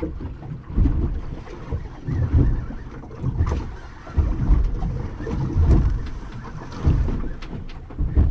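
Wind buffeting the microphone in uneven low gusts aboard a small boat lying at anchor, with no engine running and a few light clicks.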